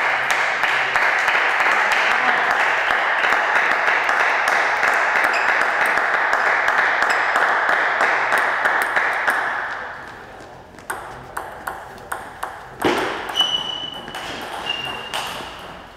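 Spectators clapping and cheering after a won point, dying away about ten seconds in. Then a table tennis ball bounces in a run of light clicks with a couple of short ringing pings as the next serve is readied.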